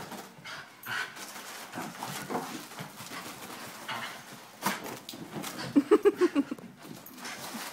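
Foil balloon crinkling and rustling in scattered crackles, with a small dog's voice breaking into a rapid run of short, loud yelps about three quarters of the way through.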